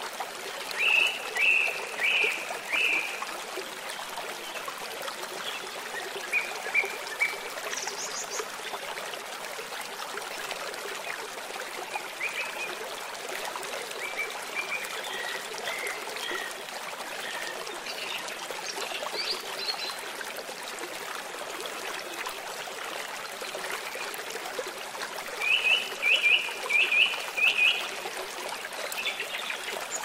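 Running water rushing steadily, with birds chirping over it: quick runs of bright chirps about a second in and again near the end, a shorter run around six seconds, and scattered softer calls in between.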